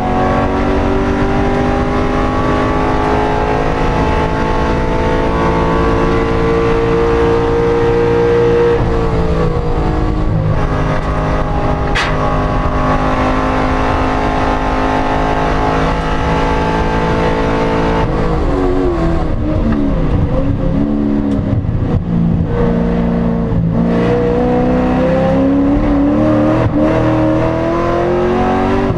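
Corvette engine running under load while driving, its pitch slowly rising for about eight seconds, dropping with a gear change, then holding a steady drone. Around twenty seconds in it falls and wavers as the car slows, then climbs again near the end. A single sharp click comes about twelve seconds in.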